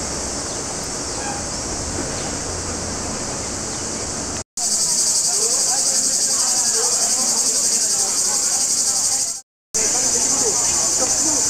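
Cicadas in the trees, a dense, steady, high-pitched buzzing, with faint chatter of passers-by underneath. It cuts out to silence twice for a moment and comes back louder after the first break.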